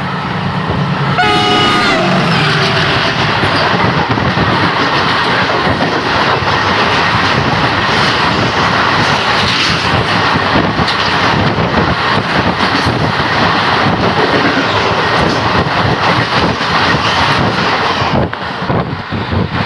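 A locomotive horn sounds briefly about a second in as a WDG6G freight train meets the moving train, then a loud, steady rush with rapid wheel clatter as its freight wagons pass close alongside on the adjacent track at speed, heard through an open coach door. The rush drops off suddenly near the end as the last wagon clears.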